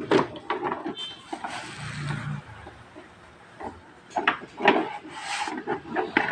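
Irregular knocks, clicks and rubbing of parts being handled on a work surface.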